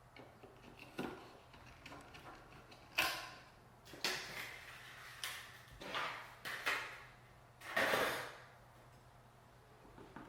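Computer parts being handled and fitted into a mini PC case: a string of short clicks, knocks and brief scrapes, the loudest a half-second scrape about eight seconds in.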